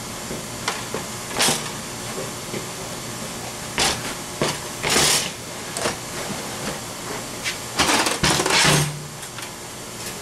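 Black cloth carry bag rustling as a flat-packed portable grill with a wire grate is slid into it, in several short bursts with the longest near the end, over a steady hiss.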